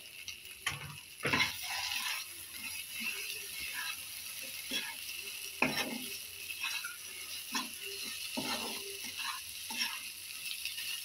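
A spatula scraping and turning a thick, dry fish-head masala around a frying kadai in irregular strokes, over a steady sizzle of frying oil.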